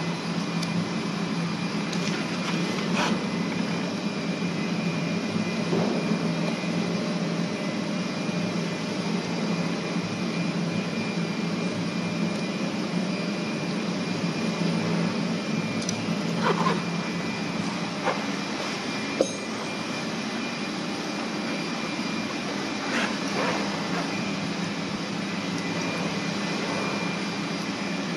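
Steady machine hum throughout, with a few light clicks and taps of small metal scooter parts being handled and fitted.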